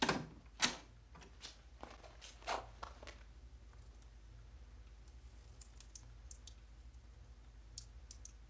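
Toilet cubicle door being shut and its metal bolt worked: a series of sharp clicks and knocks over the first three seconds, then faint room tone with a few light ticks.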